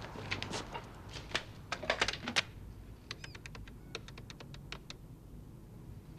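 Corded telephone being picked up and dialled: handling knocks and clatter, then a quick run of even dial clicks.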